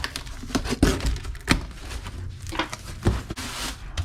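Handling knocks and clunks as a metal wheel hub is set into an ultrasonic cleaner's tank, several separate knocks, with a brief hiss about three and a half seconds in.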